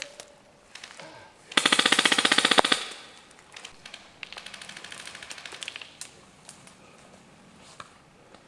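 Airsoft rifle firing on full auto: a loud, fast burst of about a second, then a quieter, longer burst about four seconds in, followed by a few scattered shots.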